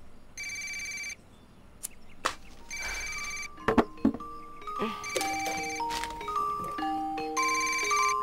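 A phone ringing in short repeated rings about every two and a half seconds, still unanswered. From about three and a half seconds in, a simple melody of single notes starts up alongside it.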